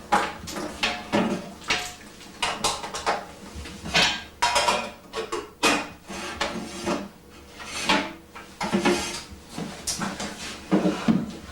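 Hard household objects clattering and clinking as they are handled and set down, in a rapid, irregular series of knocks.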